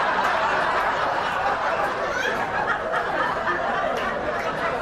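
Audience laughing, a dense wash of many voices holding an even level.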